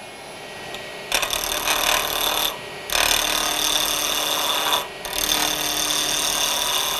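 Skew chisel cutting a wooden pen blank spinning on a lathe's pen mandrel: a clean scraping cut that starts about a second in and comes in three passes with two short breaks, over the lathe's steady running.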